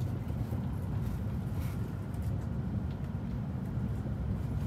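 Steady low rumble of a Shinkansen bullet train running at speed, heard from inside the passenger cabin.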